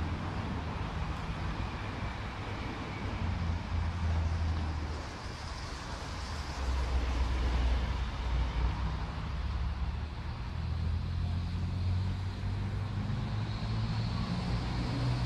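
Steady low engine rumble, with a faint high whine that rises near the end.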